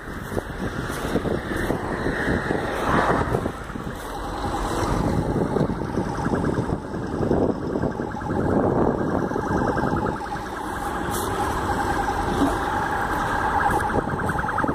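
Outdoor roadside noise dominated by rumbling and handling noise on a handheld phone microphone. From about four seconds in, a steady, rapidly pulsing tone sounds in the background.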